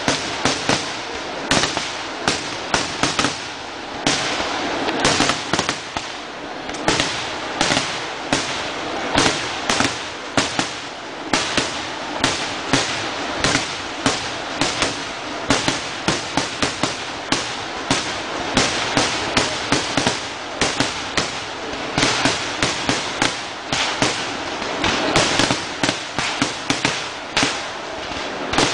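Kerala vedikkettu fireworks: ground-fired firecrackers going off in an unbroken barrage of sharp bangs, about two to three a second, with dense crackling between them.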